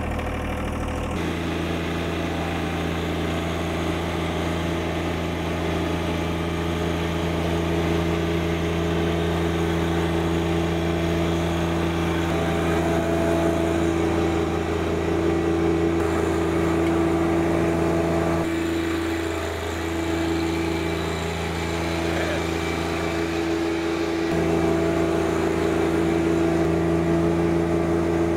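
John Deere 1025R compact tractor's three-cylinder diesel engine running steadily under load as it tows a heavy pickup truck up a slope on a tow strap, not straining. The engine note dips briefly about two-thirds of the way through.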